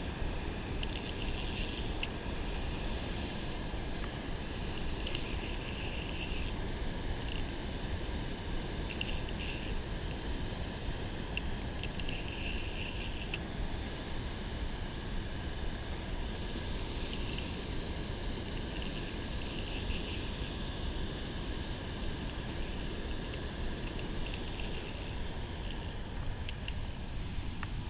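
Steady rushing noise of water pouring through a dam spillway, with brief higher buzzes coming and going every few seconds.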